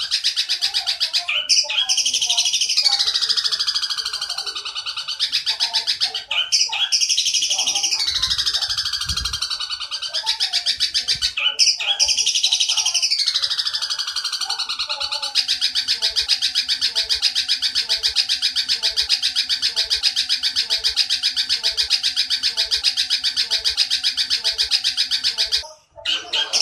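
Sparrow-type chattering, the long 'nyerecet' rattle of Eurasian tree sparrow calls used to tutor young long-tailed shrikes: very rapid, high and continuous, with a falling sweep every few seconds in the first half, then an unbroken rattle that cuts out briefly near the end.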